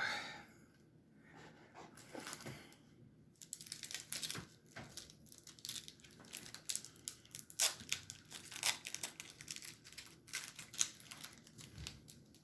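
Trading cards and their pack wrapper being handled: irregular crinkling and rustling with many small sharp clicks, getting busier from about three seconds in.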